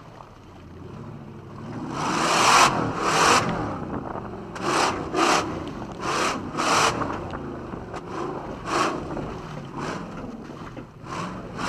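Supercharged Toyota 2UZ-FE V8 in a 1994 Toyota pickup, revved hard in repeated short bursts, often in pairs, as the truck drives through mud. The bursts begin about two seconds in, after a quieter start.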